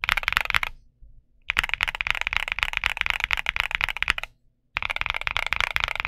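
Fast typing on a Luminkey65 mechanical keyboard with Gateron Sylva switches, a polycarbonate plate and Cherry-profile dye-sub PBT keycaps: a dense run of keystrokes. It pauses briefly about a second in and again about four and a half seconds in.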